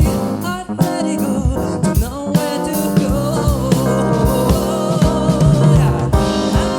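A live band playing a pop-soul song: drum kit strikes and held chords from keyboards and bass, with a lead melody line that bends and slides over them.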